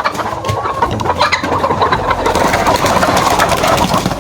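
A flock of laying hens clucking and moving about in their house, a dense chatter of many short calls.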